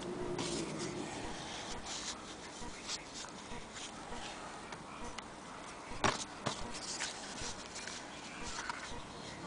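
Handling noise at a sewing machine: fabric rustling and sliding over the metal bed, with scattered small clicks, the two sharpest about six seconds in. The machine itself is not running.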